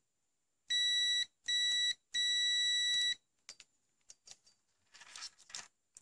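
ZOTEK ZT102 digital multimeter's continuity buzzer beeping three times, two short beeps then a longer one, as the probes touch the coffee maker's thermal fuse: the fuse conducts and is intact. A few faint clicks of the probes being handled follow.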